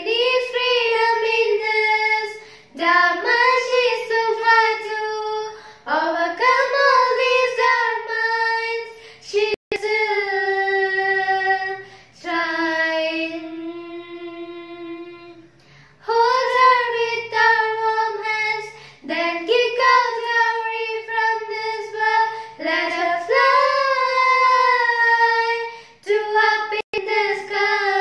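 Two girls singing a slow song together in phrases a few seconds long, with one long held note fading away about halfway through before the singing picks up again.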